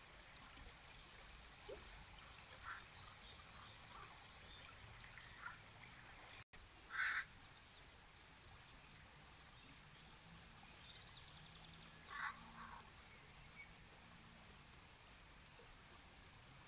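Shallow river water running over stones, a soft steady hiss, with small birds chirping and two short, harsh bird calls about seven and twelve seconds in.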